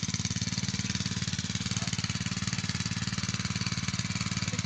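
A small engine running steadily at an even speed, with a fast, regular beat.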